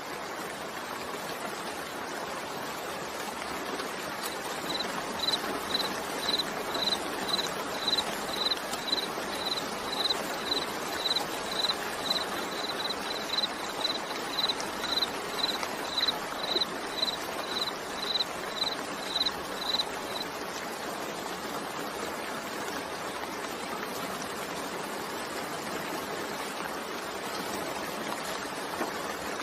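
Steady rain. From a few seconds in, a high beep repeats evenly about twice a second for some fifteen seconds, then stops.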